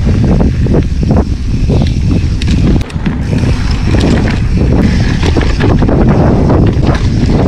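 Mountain bike descending a dry dirt trail at speed: tyres rolling and skidding over dirt, the frame and parts rattling over bumps, with heavy wind buffeting on the microphone. There is a short lull about three seconds in.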